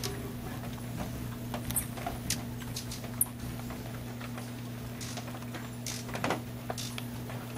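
Rain falling in a cloud forest, drops pattering and dripping irregularly on leaves, with a steady low hum underneath. A few very short, very high ticks stand out in the first half.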